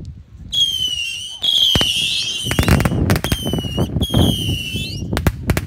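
Fireworks going off: a shrill whistle, wavering and slowly falling in pitch, sounds in several stretches. Sharp bangs break in between, with a quick run of bangs near the end.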